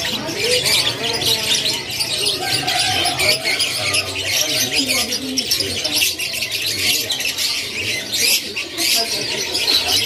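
Many caged canaries chirping and singing at once, a dense, continuous overlapping chatter of high calls, with voices murmuring beneath.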